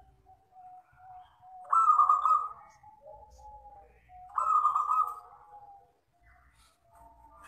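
Local wild-type zebra dove (perkutut) cooing: two loud phrases about two and a half seconds apart, with softer, lower coos before and between them. The clear, ringing voice is what keepers call 'kristal'.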